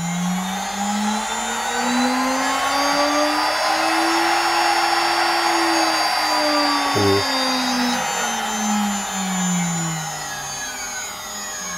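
1.5 kW CNC router spindle, run by a VFD, whining as it winds up in pitch to full speed about five seconds in. It then winds down with steadily falling pitch and fades out near the end, being stopped by the touchscreen emergency stop.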